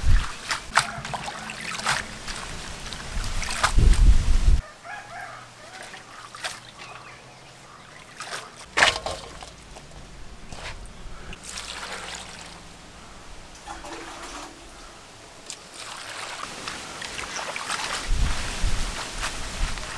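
Hands swishing and lifting leafy greens in a metal basin of water: irregular sloshing and splashing. Louder at first, it drops suddenly about four and a half seconds in, then grows louder again near the end.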